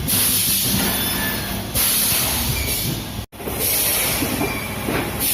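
Bottled-water filling machine running, with a steady mechanical clatter and a high hiss of air that comes in repeated blocks about every two seconds. The sound drops out briefly a little past three seconds in.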